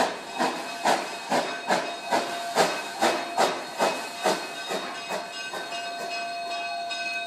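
Narrow gauge K-36 Mikado steam locomotive working slowly, its exhaust chuffing a little over twice a second over a steady hiss of steam. The chuffs die away after about four and a half seconds as the throttle eases, leaving the hiss and a steady high ringing tone.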